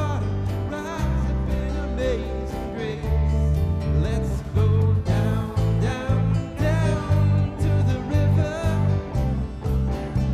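Worship band playing a contemporary worship song with voices singing over it. A steady bass beat pulses about twice a second from about four seconds in.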